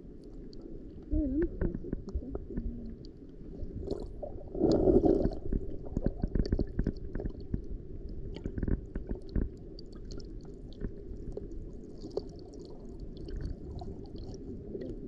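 Muffled underwater sound in shallow sea water: a steady low rumble of moving water with scattered clicks and crackles, and a louder surge about five seconds in.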